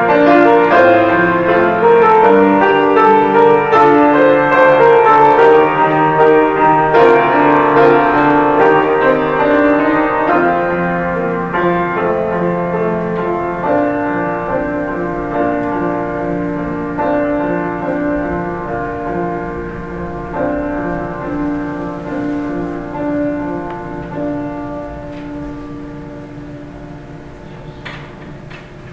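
Grand piano played solo, sustained notes and chords that fade gradually softer through the second half.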